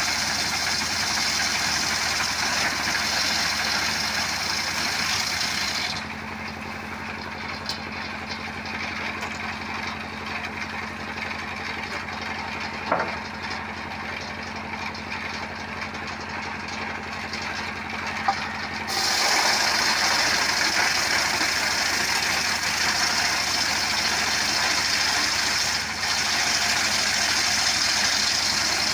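Motorcycle engine driving a homemade wood-cutting machine, running loud at first. About six seconds in it drops to a quieter steady idle. A little past halfway it abruptly comes back to the louder running.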